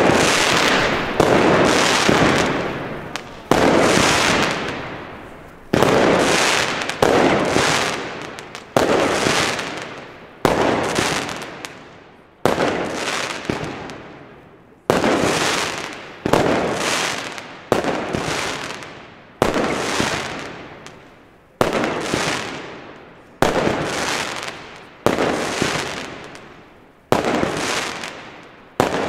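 Firework battery (multi-shot cake) firing shot after shot, roughly one a second. Each shot is a sharp bang that fades out over about a second before the next.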